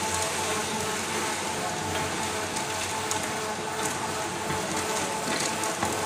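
Mini concrete mixer running, its 2 HP single-phase electric motor humming steadily under a gritty hiss of dry sand-cement mix being poured from a bucket and tumbling in the turning drum.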